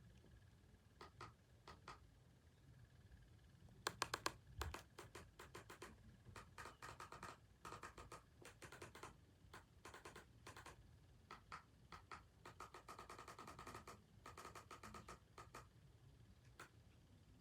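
Faint, irregular clicking and tapping, bunched into quick clusters.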